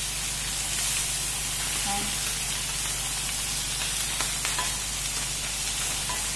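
Dried salted fish (tuyo) sizzling steadily in hot oil in a frying pan, with a few light taps of a wooden spatula against the pan as the fish are turned. A steady low hum runs underneath.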